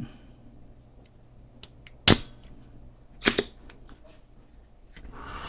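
Two sharp clicks about a second apart from tools being handled at a soldering bench, with a few faint ticks and a short soft hiss near the end.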